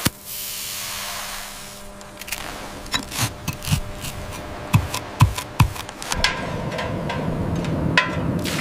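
A burning fuse cord hissing, then a run of sharp clicks and knocks as a stopper and fittings are handled, then a low steady rumble with a hiss.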